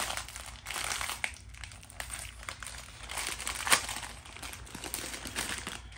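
Crinkling of a small metallised-plastic snack bag being pulled open and handled by hand, with several sharp crackles, the loudest a little past the middle.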